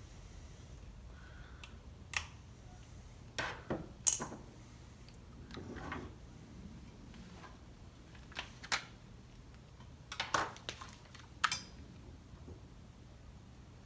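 Scattered sharp clicks and light clinks of small chainsaw parts and hand tools being handled on a workbench, about a dozen in irregular clusters.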